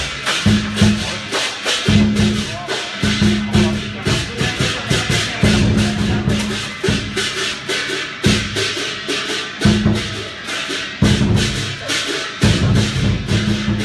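Chinese lion dance percussion: a large drum beaten in fast runs broken by short pauses, with cymbals clashing along with it.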